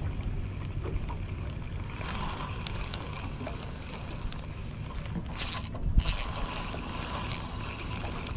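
Spinning fishing reel being cranked, its gears and rotor ticking, with two short louder whirring bursts a little past the middle.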